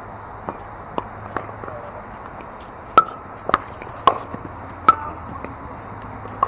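Pickleball rally: a plastic pickleball popping off hard paddles, with a few faint pops early, then a quick exchange of four sharp pops roughly half a second apart starting about three seconds in, and one more near the end.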